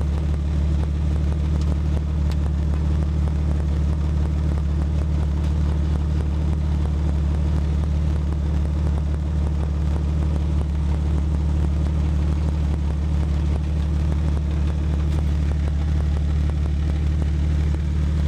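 Truck's straight-piped exhaust idling steadily, its flange freshly refastened.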